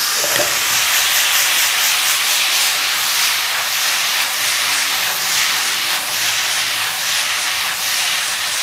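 Hot wok of fried flat rice noodles hissing and sizzling loudly, throwing off steam from a splash of water, while the noodles are tossed in the pan over the gas flame.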